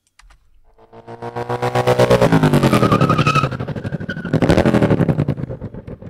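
Harley-Davidson motorcycle recording pitched up and chopped by a fast amplitude modulation into a rapid, even pulsing: a sci-fi spaceship pass. It swells in about a second in, its pitch falls after about two seconds, and it surges again around four and a half seconds before fading.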